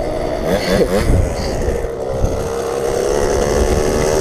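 Kawasaki dirt bike engine running. Its pitch falls as the bike slows in the first second or so, then it settles into a steady idle.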